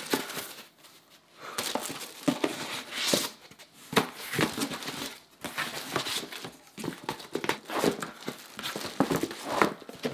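A cardboard shipping box and its packing being opened and rummaged through: irregular rustling and crinkling.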